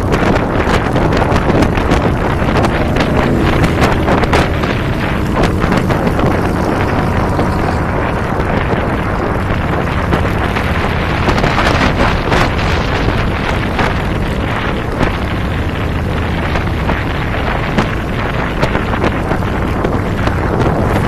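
Wind buffeting the microphone of a camera mounted on a motorcycle riding at highway speed, with the motorcycle's engine running steadily underneath.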